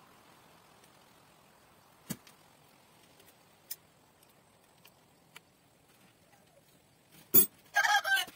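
A few light clicks from a BMX bike's handlebar and stem being worked by hand, then near the end a sharp knock followed by a brief ringing, rattling clatter as the bike is handled.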